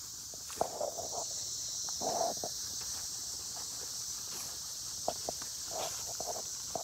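Dogs playing on grass, with short scuffs and rustles of paws and footsteps, the loudest about two seconds in. Under them runs a steady high-pitched drone of insects.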